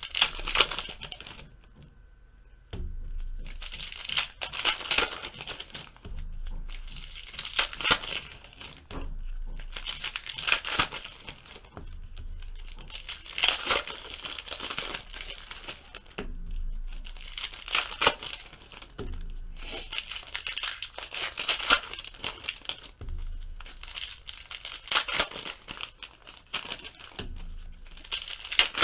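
Foil football trading-card packs being torn open and crinkled by hand, in repeated bursts of crackling and tearing every few seconds, with cards slid out and handled between them.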